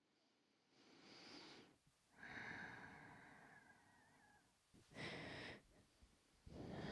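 A woman breathing softly: four slow breaths, the second drawn out with a faint whistle.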